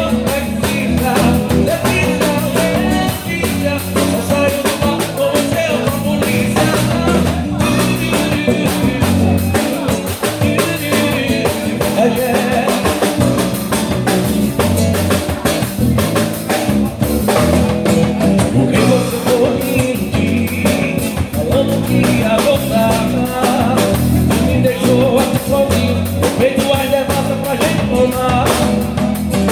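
A live band playing a song: drum kit keeping a steady beat under bass, with a sung melody.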